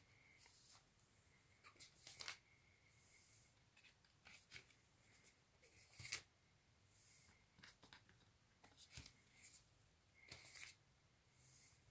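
Faint rustles and soft taps of cardboard LP sleeves being handled, as one record sleeve after another is taken off the front of a stack; otherwise near silence.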